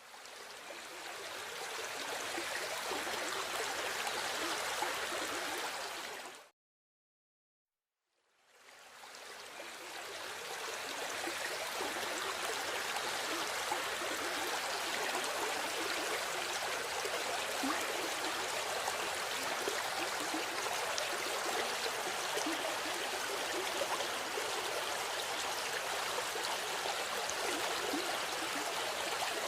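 River water flowing steadily, a dense even noise of running water. It fades up at the start, drops out to complete silence about six seconds in, then fades back up about two seconds later and runs on steadily.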